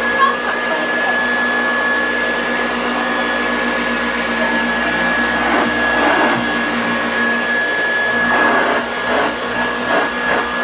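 Hoover Junior 1346A upright vacuum cleaner running, its 250-watt motor giving a steady high whine while it is worked over a thick-pile rug, picking up a mix of large and fine debris.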